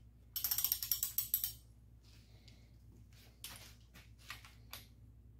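Ratchet wrench clicking rapidly for about a second as a connecting-rod cap nut on a small-block Chevy V8 is run down, then a few single clicks of the wrench a couple of seconds later.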